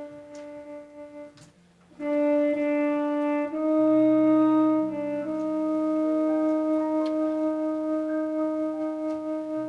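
Slow instrumental music of long held notes and chords with a brass-like tone. It fades almost away about a second and a half in, then comes back louder on a new chord that changes a couple more times.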